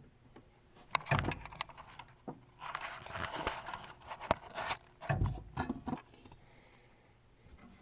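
Hands repositioning the ignition wire on an oil furnace burner assembly: scattered clicks and knocks, a couple of dull thumps, and a stretch of rustling and scraping in the middle.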